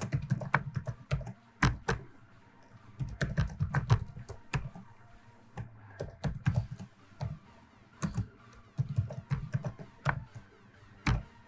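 Computer keyboard being typed on in short bursts of keystrokes, with brief pauses between the bursts.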